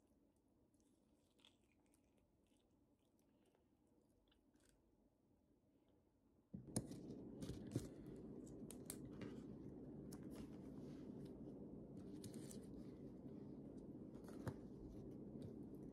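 Near silence for the first six seconds or so. Then a steady low room hum, with light clicks, taps and paper rustles as a pen and sticky notes are handled on a desk; a few of the clicks are sharper.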